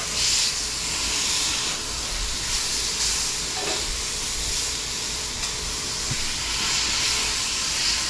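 Ground-beef patty with thinly sliced onions sizzling on a smoking-hot griddle as it is smashed flat under a metal spatula. A steady hiss that swells and eases.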